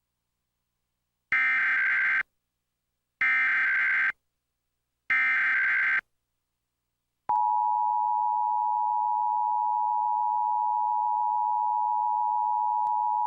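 Emergency Alert System Required Monthly Test on a cable TV feed: three short, identical bursts of warbling SAME digital header data, which encode the alert's originator, event and area. About seven seconds in, the steady two-tone EAS attention signal starts and holds.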